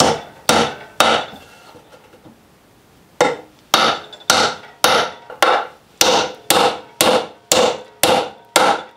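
Claw hammer driving a nail into 2x4 lumber. Three strikes in the first second, a pause of about two seconds, then a steady run of about a dozen blows at roughly two a second, each with a short ring.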